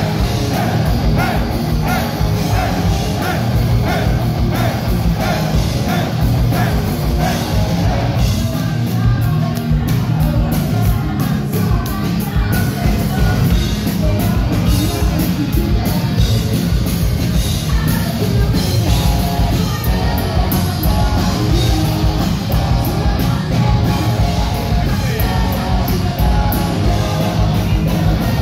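Hard-rock band playing live and loud: distorted electric guitars, bass and a fast, driving drum beat.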